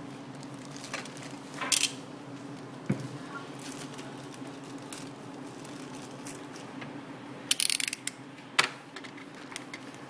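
A small plastic bag of connector parts being handled and cut open with scissors: scattered crinkles and sharp snips, with a quick run of crisp clicks about three-quarters of the way through and one sharp click just after. A steady low hum lies underneath.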